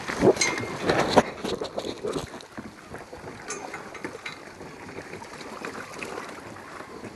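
Splashing and knocks of a kayak and paddle being handled as someone climbs in, loudest in the first two seconds, then a steady hiss of wind and water.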